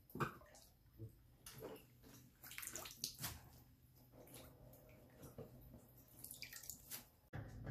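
Water splashing and sloshing in a tub of bubbling wash water as hands stir leafy greens to knock off grit, with a faint low steady hum underneath.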